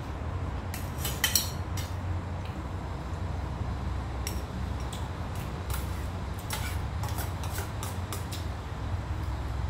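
Metal spoon clinking and scraping against a stainless steel bowl while eating, with a cluster of sharper clinks about a second in and scattered clinks after. A steady low hum runs underneath.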